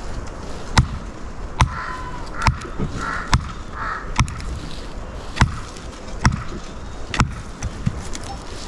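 Regular chopping strokes, a sharp knock about once a second, with a few short calls in the middle.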